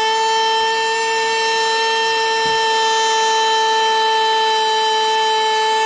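Battery-powered 3-in-1 mini handheld vacuum cleaner running flat out: a loud, steady, high-pitched motor whine.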